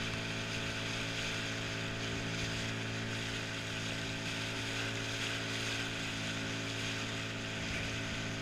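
Boat engine running steadily, an even hum with a constant pitch, over a steady hiss of water and air.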